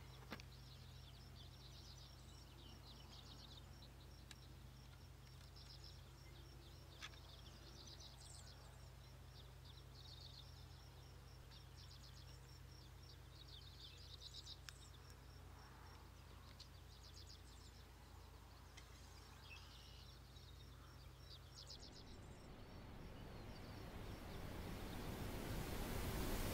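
Faint outdoor ambience: quick high-pitched chirping trills repeating over a low steady hum. Near the end a rushing hiss swells steadily louder.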